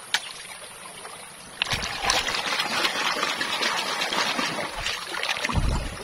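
A plastic toy truck being scrubbed by hand in shallow stream water: a quiet steady trickle, then loud vigorous splashing from about one and a half seconds in, ending with a low thump near the end.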